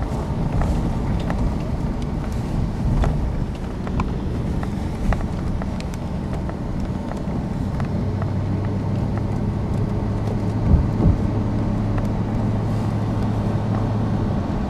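Car running on the road, heard from inside: steady low road and engine rumble with scattered small knocks, and a steady low engine hum setting in about halfway through.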